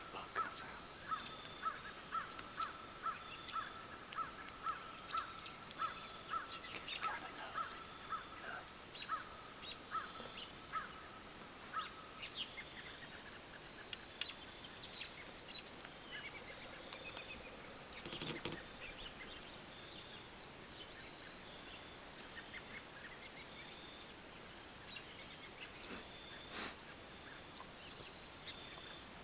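A bird calling a steady series of short, clear notes, about two a second, which stops about twelve seconds in, with fainter high chirps from other birds throughout. Two sharp clicks come later, one past the middle and one near the end.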